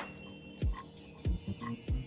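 Background music: held notes over deep kick drums that drop in pitch, about three beats in two seconds.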